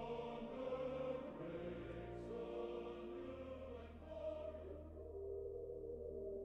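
Sustained choir singing coming from the church, heard as it diffracts around a house in a simulated propagation. About five seconds in the high end drops away and the singing turns muffled, low-passed behind the house.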